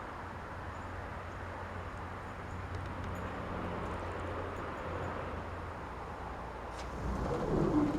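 Steady outdoor background noise with a low hum; a person's voice is heard briefly near the end.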